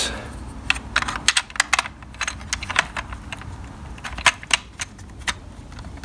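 Light, irregular clicks and taps of hard plastic parts being handled and fitted together: the brush-bar end cap being put back onto a Dyson DC24 cleaner head.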